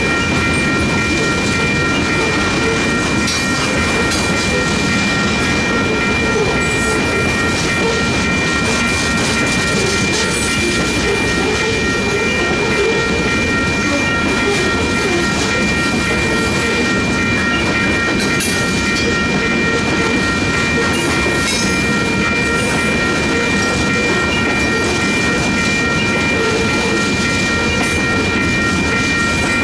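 Freight train of covered hopper cars rolling steadily past: a continuous rail rumble with the clickety-clack of wheels over the rail joints. A steady high-pitched ringing tone holds above it.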